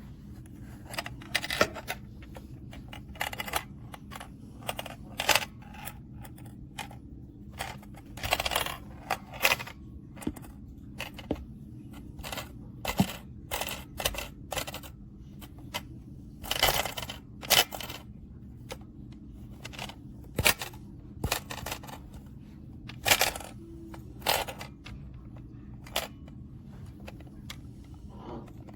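Small ball clicking and rattling inside a money maze puzzle box as the box is tilted and handled: irregular sharp clicks and short rattling runs, some lasting about half a second.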